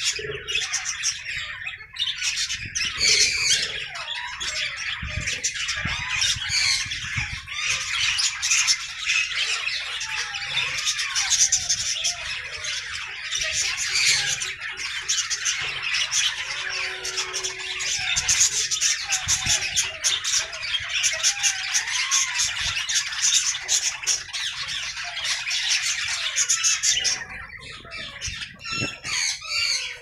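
A flock of budgerigars chattering and squawking continuously, many birds warbling and chirping over one another; the chatter thins out near the end.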